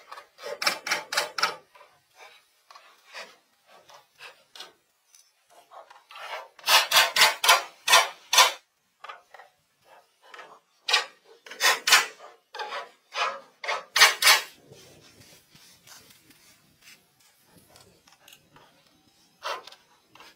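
Quick rasping strokes on wood, like filing or sanding, at about four to five a second in three runs: a short one at the start, a louder one a third of the way in, and a longer one around the middle.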